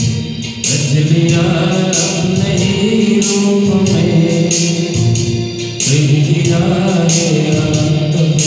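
A man sings a Hindi worship song into a microphone, holding long notes over a backing track with a steady beat.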